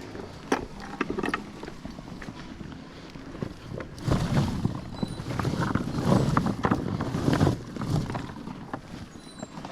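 Animals crunching and chewing sugarcane: a few sharp snaps in the first second and a half, then a louder stretch of crackling and rustling from about four to eight seconds in.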